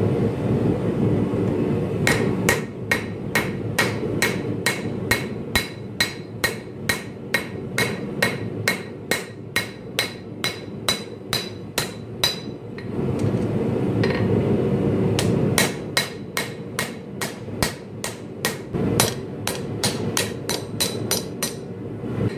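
Hand hammer striking a red-hot Damascus steel blade on an anvil to forge in the bevels: quick, even blows of about three a second in two runs, with a pause of a couple of seconds about halfway through. A steady roar from the forge runs underneath.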